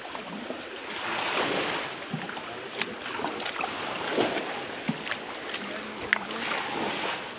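Shallow stream running over stones, a steady rushing wash, with a few scattered clicks and knocks.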